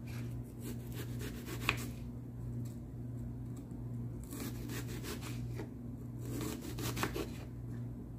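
Kitchen knife sawing back and forth through a peeled onion on a wooden cutting board: soft rasping strokes with the odd tap of the blade on the board, one sharper tap nearly two seconds in, over a steady low hum.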